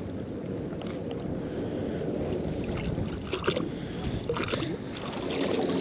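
Wind rumbling on the microphone over small waves lapping at the shore, with a few light splashes and drips past the middle as the wet rope and magnet are pulled up out of the water.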